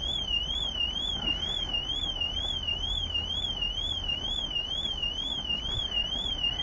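Nissan car alarm siren sounding, a high electronic tone warbling rapidly up and down about three times a second.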